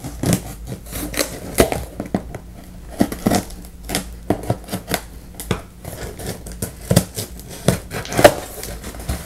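Scissors cutting through packing tape on a cardboard box, then the cardboard being handled and its flaps worked loose: a run of irregular sharp clicks, snips and scrapes.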